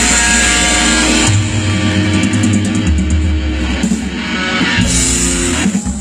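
Live rock band playing with electric guitar, bass and drums. The music drops away just before the end.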